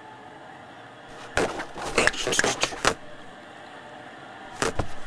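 Cartoon foley of cat claws scratching and tearing at sofa upholstery. It comes in two runs of quick, rasping strokes, one starting about a second and a half in and another near the end.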